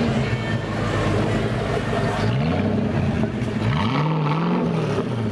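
Sports car engine revved in a series of throttle blips, its pitch rising and falling several times, with the longest rev held about four seconds in.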